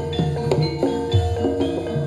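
Javanese gamelan playing: bronze kettle gongs and metallophones struck in a steady beat of ringing notes, about three strokes a second, over low drum beats.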